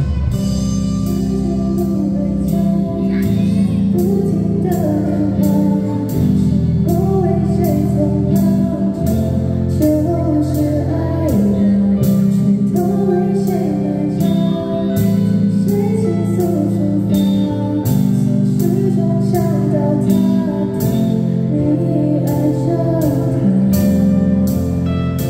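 Live rock band playing a pop-rock song: a female lead singer over electric guitars, bass, keyboard and a steady drum beat.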